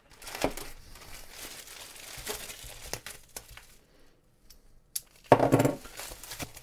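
A plastic poly mailer being cut open with a knife, then plastic wrap and bubble wrap rustling and crinkling as packages are handled, with a louder burst of crinkling a little after five seconds in.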